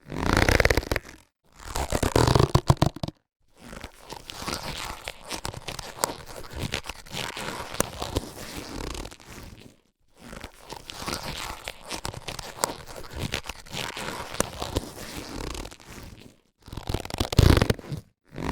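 Latex surgical gloves being handled, stretched and rubbed. There are louder bursts of rubbery stretching in the first few seconds and again near the end, and a long softer stretch of rubbing and crinkling in between, broken by two short pauses.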